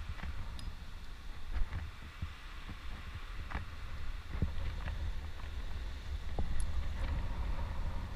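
Wind buffeting the microphone in a steady low rumble, with scattered small clicks and scuffs of a climber's hands and gear on the rock.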